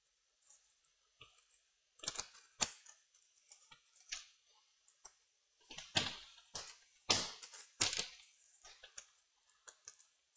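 Irregular small clicks and scrapes of a laptop RAM module being handled: unclipped from its slot and its contacts cleaned.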